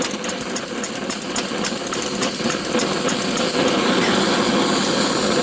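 Antique paraffin blowlamp burning with a steady rushing hiss, with a fast fine crackle over the first three seconds or so. It is running a little intermittently, not terribly well.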